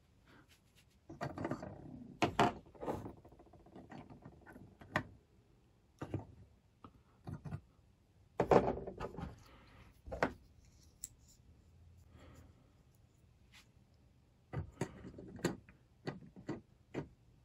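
Small plastic model figures being handled and seated on a plastic bridge-set model: irregular light clicks, taps and rubbing, in clusters about a second in, around eight to ten seconds in, and near the end.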